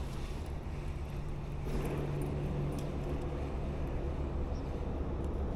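Wind rumbling on the microphone, with a faint low hum through the first half and a few faint clicks.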